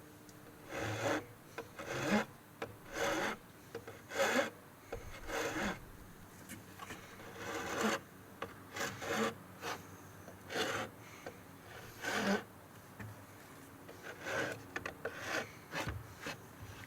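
A hand tool scraping across wood in repeated short strokes, about one a second with a couple of brief pauses, as the wood is shaped or smoothed by hand.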